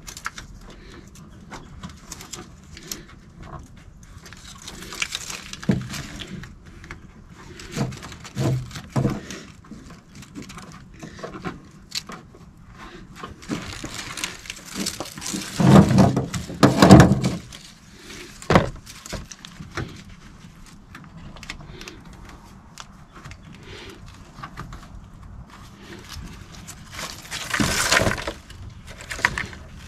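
Hands fitting a TruXseal rubber tailgate seal strip along a pickup's tailgate: scattered rustling, scraping and light knocks, with a cluster of louder thumps about halfway through and a brief scraping rush near the end.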